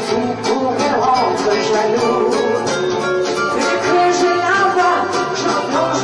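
Live band music with a steady beat played on electronic keyboards, and a woman singing through a microphone.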